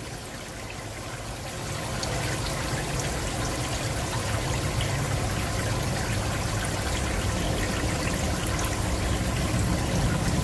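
Steady trickle of aquarium water with a low hum underneath, growing louder about two seconds in and then holding.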